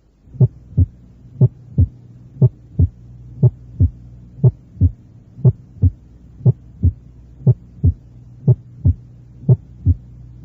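Recorded heart sounds heard at the chest wall, a steady rhythm of about one beat a second. Each beat is a pair of short thuds, the first and second heart sounds, over a steady low hum. It demonstrates a loud, sharp first heart sound, produced when the mitral and tricuspid valves are still wide apart as the ventricle contracts and snap shut.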